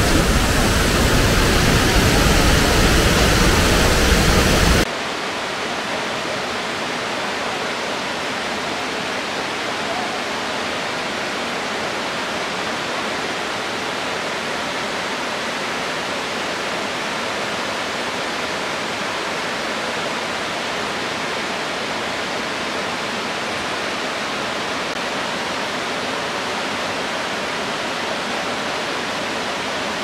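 Tirathgarh Waterfall's two streams plunging into the rock pool: a steady, even rush of falling water. For about the first five seconds it is louder and fuller, then it cuts to a quieter, steady rush.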